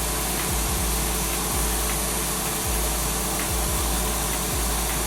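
Steady rushing noise with a faint low hum, like a fan or air blowing, holding level throughout.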